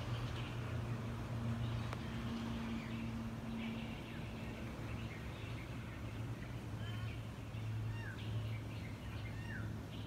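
Scattered short bird chirps and a few quick downward-gliding calls, more of them in the second half, over a steady low hum.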